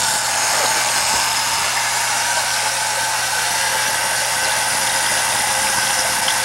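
Small electric motor of a homemade Rube Goldberg machine running steadily, with a low hum and a few faint mechanical clicks.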